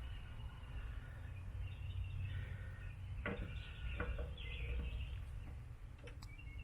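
Birds chirping faintly over a low, steady outdoor rumble, with two light clicks about three and four seconds in.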